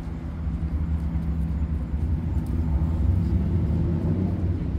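Low engine rumble of a motor vehicle, growing louder to a peak about three seconds in and then easing off as it passes.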